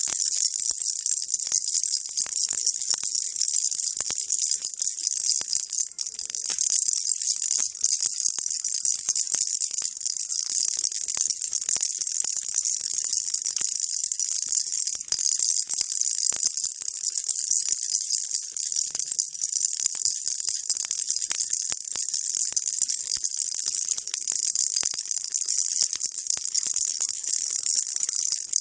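Baby rattle shaken continuously, a dense, unbroken high rattling of small beads.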